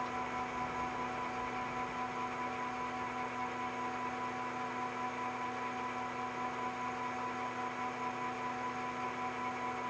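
Metal lathe running steadily, giving an even hum made of several steady tones.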